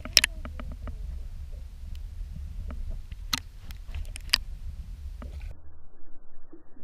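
Muffled underwater sound picked up by a submerged camera: a steady low rumble with scattered sharp clicks and knocks, turning duller about five and a half seconds in as the top end drops away.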